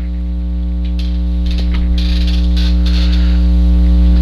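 Loud, steady electrical mains hum that slowly grows louder, with a few faint clicks and rustles from handling pistol parts on the bench.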